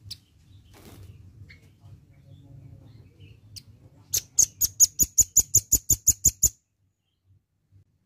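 Velvet-fronted nuthatch calling: a fast, loud trill of sharp, high notes, about six a second, starting about halfway in and cutting off suddenly after a couple of seconds. A few faint single chirps come before it.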